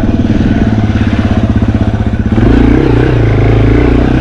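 Yamaha TW200's single-cylinder four-stroke engine pulling at low revs with each firing pulse distinct, then getting louder about two seconds in as the throttle opens.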